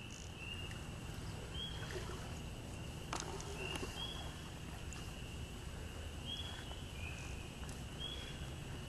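Faint frog chorus: short rising peeps about once a second over a steady high-pitched drone of many callers, with a low steady rumble underneath and a single click about three seconds in.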